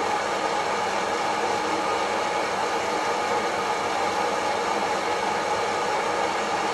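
Kaffelogic fluid-bed coffee roaster running mid-roast, its blower pushing hot air up through the beans with a steady, unbroken whoosh.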